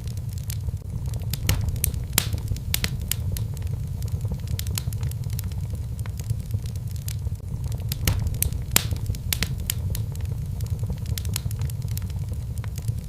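Wood fire burning in a fireplace: frequent sharp, irregular crackles and pops over a steady low rumble of the flames.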